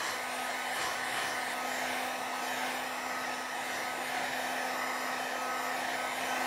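Electric heat gun running steadily: an even blowing hiss with a low, steady motor hum.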